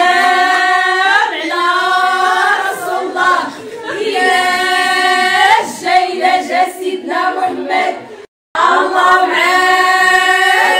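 A group of women singing a Moroccan Arabic song together without instruments, in long held notes, with a short break in the sound a little after eight seconds in.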